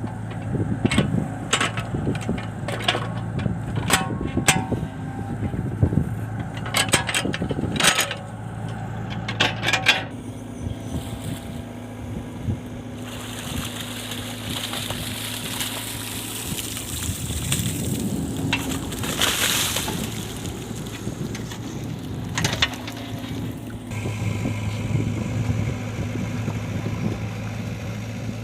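Mini excavator's diesel engine running steadily, with sharp clanks and knocks of the bucket working in the first ten seconds. This is followed by a rushing hiss for about ten seconds, loudest around the middle.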